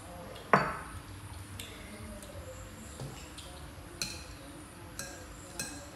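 A metal spoon clinking against a ceramic plate during a meal: about six light, ringing clinks, with one louder knock about half a second in.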